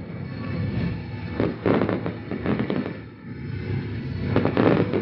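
Fireworks display going off: a rapid run of bangs and pops from bursting shells and low-level fountains, loudest about a second and a half in and again near the end.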